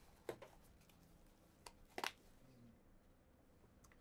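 Near silence in a small room, broken by a few faint short clicks, one about a third of a second in and two close together around two seconds in.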